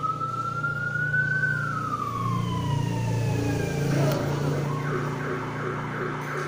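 A siren wail that rises slowly and then falls away, over the steady hum of a child's electric ride-on toy car's drive motors. From about four seconds in, a short chirping sound repeats about twice a second.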